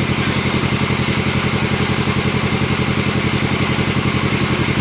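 Engine of a band sawmill running steadily, with a fast, even chugging pulse.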